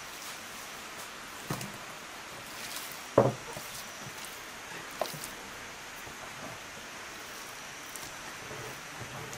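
Handfuls of chopped raw meat and lamb fat dropped into an enamel bowl: a few soft thuds, the loudest about three seconds in, over a steady background hiss.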